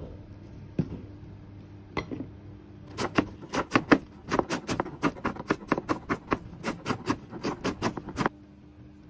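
Chef's knife chopping scallions on a plastic cutting board: two single cuts, then a steady run of quick chops, about four a second, that stops suddenly near the end.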